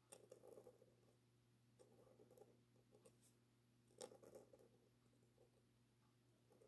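Faint scratching of a dip pen's metal nib on paper in short strokes, with a sharp tick about four seconds in, over a faint steady hum.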